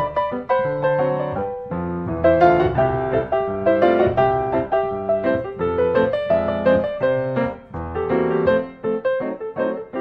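Background piano music: a gentle melody with chords, notes struck in quick succession.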